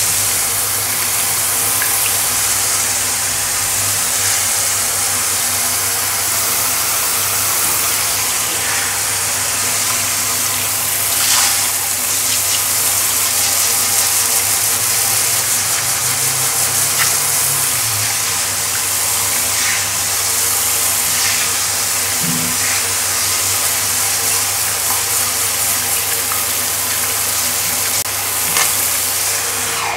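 Handheld shower head with a bath-brush attachment spraying water onto a tiled floor: a steady hiss of running water.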